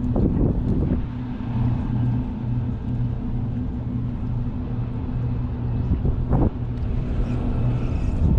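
An engine running steadily at a constant speed, a low pulsing hum, with two brief knocks, one just after the start and one about six seconds in.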